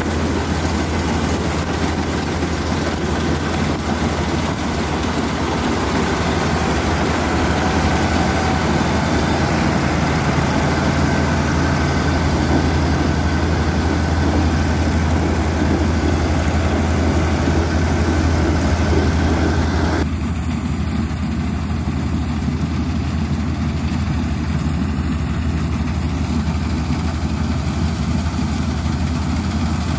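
Paddy combine harvester running at work: a steady, loud engine and machinery drone with a strong low hum. About two-thirds of the way through, the sound abruptly turns duller and slightly quieter.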